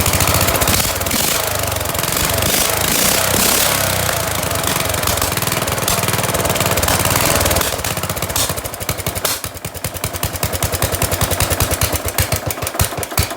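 Small lawn-mower engine on a rebuilt Murray riding mower running loud and fast with no muffler, its throttle sucked wide open by intake vacuum. About eight seconds in it slows to separate, uneven firing strokes as it winds down toward stopping.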